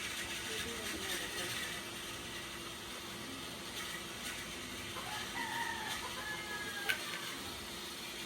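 A rooster crowing once, starting about five seconds in and lasting about a second and a half, over a steady background hiss, followed by a single sharp click.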